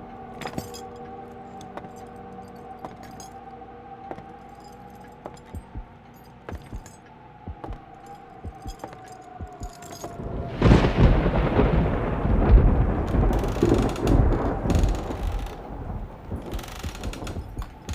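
Eerie sound-effect soundscape: a steady droning tone with scattered sharp clicks, broken about ten seconds in by a loud rumbling crash that lasts several seconds, after which the clicks carry on.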